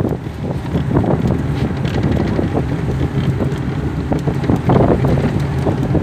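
Wind buffeting the phone's microphone: a loud, rumbling noise with irregular crackles.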